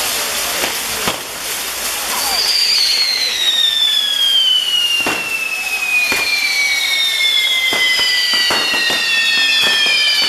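Ground fireworks burning: a loud hiss of fountains with several whistles that each fall steadily in pitch, joined one after another from about two seconds in, and scattered sharp cracks.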